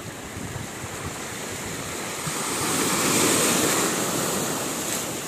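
Sea waves washing in, one wave swelling to its loudest about three seconds in and then easing off.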